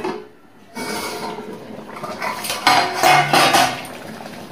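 Aluminium pan lid clattering and scraping against a metal cooking pan as it is handled and taken off, loudest about three seconds in.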